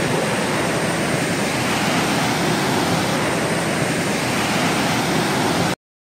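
Small waterfall rushing over boulders into a stream pool, a loud, steady rush of water heard close up. It cuts off abruptly to silence just before the end.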